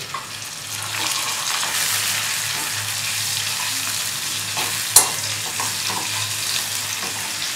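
Garlic, sliced onion and bay leaves sizzling in hot mustard oil in a steel kadai, stirred and scraped with a flat spatula. One sharp clack of the spatula against the pan about five seconds in.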